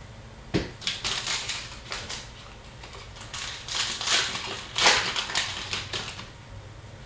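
Hockey card packs being torn open and handled: a run of quick crinkling and rustling from the wrappers and cards, busiest in the middle and tailing off near the end.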